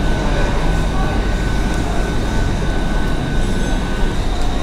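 Pizza vending machine running while it prepares an order: a steady mechanical hum and low rumble with a high, even whine that cuts off about four seconds in.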